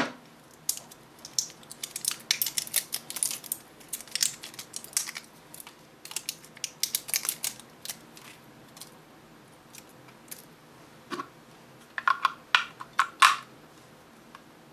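Plastic battery wrapping being handled and cut open with a small knife: a quick scatter of crinkles and light clicks. Later come a few louder plastic clicks as batteries go into a small plastic battery compartment.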